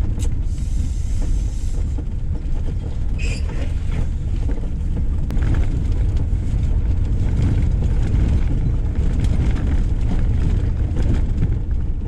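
Camper van driving over a rough unmapped track, a steady low rumble.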